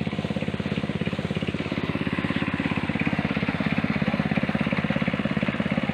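Small engine running steadily, an even, rapid chugging.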